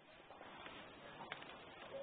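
Faint room noise at the edge of near silence, with a couple of faint short clicks.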